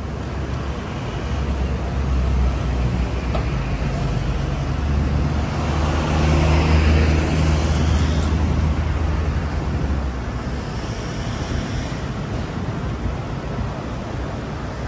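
Road traffic: a steady low engine drone, with a vehicle passing close that is loudest about six to eight seconds in.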